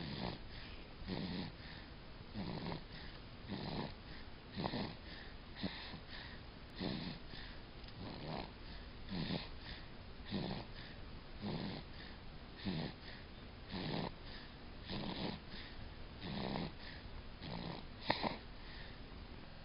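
Snoring: short, rasping snores repeating evenly, about one a second.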